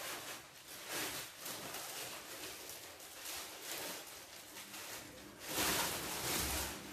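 Clear plastic bag rustling and crinkling as it is pulled off a speaker unit, in uneven bursts with the loudest crinkling about five and a half seconds in.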